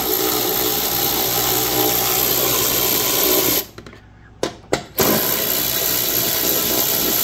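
Cordless electric ratchet running, spinning off the 10 mm nuts that hold the air box. Its motor stops a little past halfway, gives two short blips, then runs steadily again.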